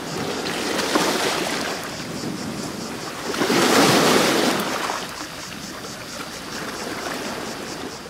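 Small sea waves washing onto a pebble beach, swelling about a second in and again more loudly around the middle.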